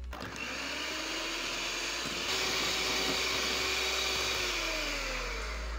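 Electric hand mixer running, its beaters whipping margarine in a glass bowl to make buttercream. A steady whirr whose pitch drops near the end.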